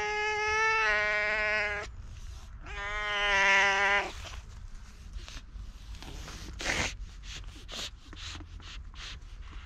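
Tabby-and-white stray cat meowing: two long, drawn-out meows, the first ending about two seconds in and the second about a second and a half long just after it, then scattered short rustles and clicks.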